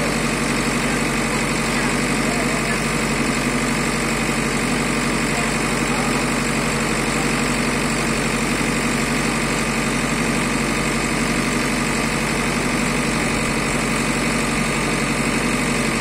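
JCB backhoe loader's diesel engine idling steadily, with no revving.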